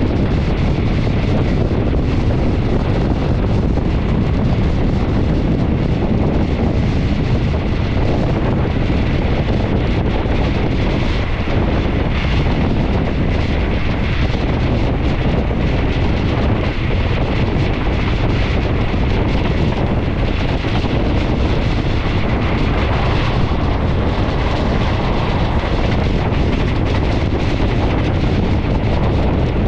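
Wind rushing over the microphone at the side of a moving train, over the train's steady running noise; a loud, even rush with no breaks.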